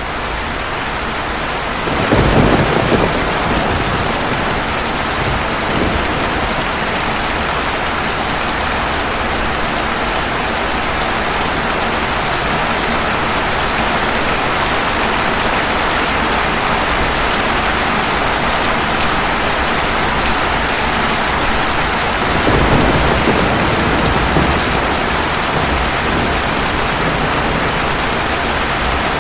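Steady heavy rain falling on pavement, with a sudden roll of thunder about two seconds in and a second rumble of thunder later on.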